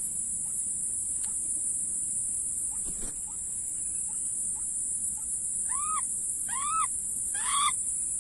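A bird calls three times in the second half, each a short call that rises and falls in pitch. A steady high-pitched hiss runs throughout.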